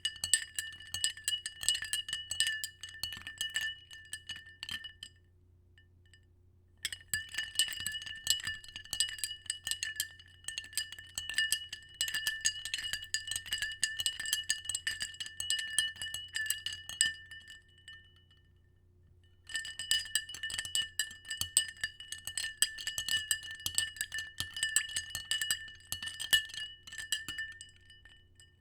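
Ice cubes swirled in a glass, clinking rapidly against the sides so that the glass rings steadily. The swirling stops twice for about two seconds, then starts again.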